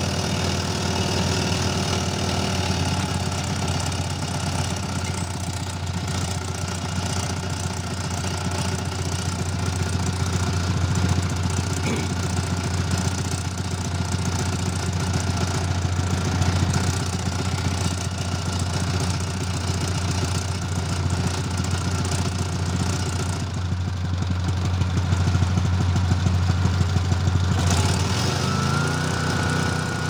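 A small air-cooled engine runs steadily, driving a hydraulic crimping pump. Near the end its note rises a little and settles higher.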